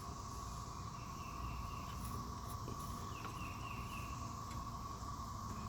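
Faint outdoor ambience: a steady high-pitched insect-like drone, with a few faint short chirps about a second in and again past the middle.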